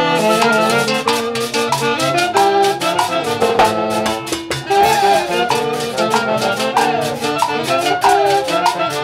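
Festive brass-led orchestra music: trumpets and trombones playing a lively melody over a steady percussion beat, with several falling pitch slides in the horn lines.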